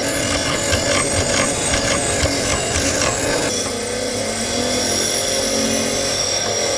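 A power tool working on metal engine parts: a steady whine, with irregular scraping strokes, a few a second, through the first half.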